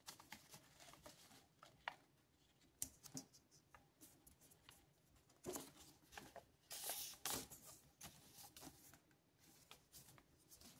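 Faint rustling and crinkling of a sheet of paper being folded and creased by hand, with scattered soft taps; the loudest rustles come about five and a half and seven seconds in.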